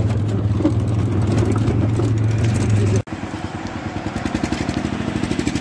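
Vehicle engine running with a steady low hum heard on board. About three seconds in, the sound cuts suddenly to a small engine puttering in a quick, even rhythm.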